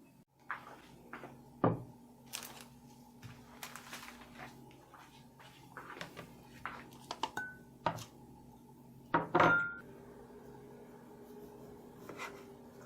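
Kitchen clatter: dishes and utensils being handled and set down, a series of scattered knocks and clinks with two louder knocks, one about a second and a half in and another near the end, over a steady low hum.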